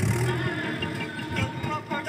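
Tractor engine running steadily with a low drone while the tractor is under way.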